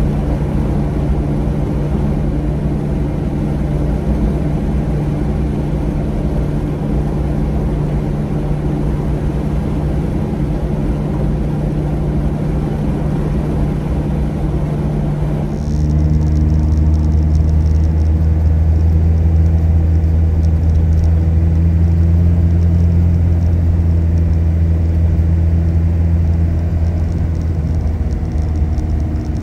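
A car's engine and road noise, heard while driving at a steady speed: a constant low drone that holds one pitch. About halfway through it changes abruptly to a louder, deeper drone.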